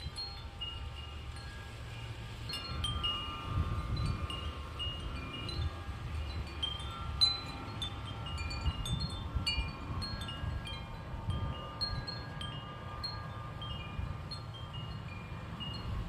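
Wind chimes ringing in the breeze, many short high tones struck at random and overlapping, more often from about two seconds in, over wind rumbling on the microphone.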